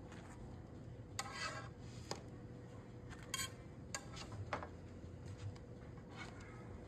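Kitchen utensils and cookware being handled: a handful of short clinks and scrapes, spread a second or so apart, over a faint steady hum.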